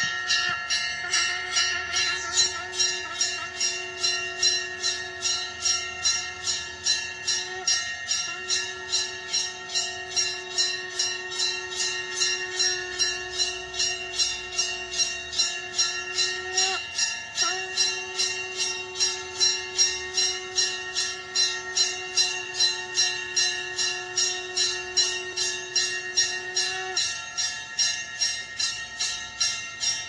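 A brass temple bell is rung steadily, about two to three strikes a second. Over it a conch shell (shankh) is blown in long held notes. The conch pauses briefly about a quarter and halfway through and stops a few seconds before the end.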